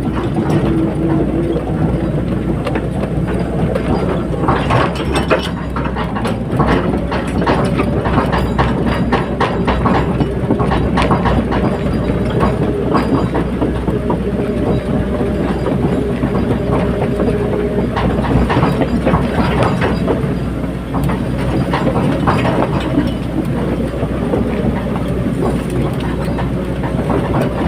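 Caterpillar 320D hydraulic excavator working, its diesel engine running steadily under a whine from the hydraulics, with frequent sharp metallic clanks and knocks.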